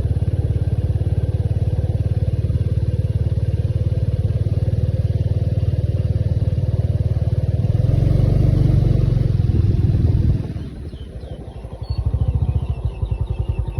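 A motor running steadily with a rapid low pulsing. It drops away sharply about ten seconds in and picks up again about a second and a half later.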